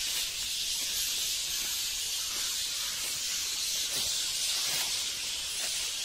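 Massed calls of a roosting bat colony in the tree canopy, blending into a steady high-pitched hiss-like din; the bats are still in the tree.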